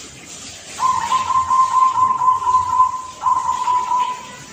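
A young zebra dove (perkutut) cooing its song: a long, rapidly trilled coo begins about a second in, followed by a shorter, steadier closing note, the 'kung' that ends its 'klar ke-te kung' phrase.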